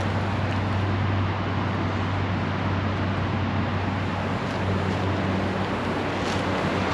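Steady rushing roar of a swollen creek below the trail, running high with spring rain and snowmelt.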